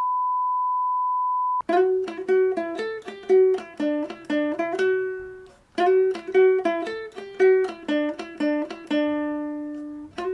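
A steady test-tone beep of a colour-bar 'please stand by' card, cut off sharply about a second and a half in. Then plucked-string music: a picked melody of short notes that pauses briefly midway and starts again.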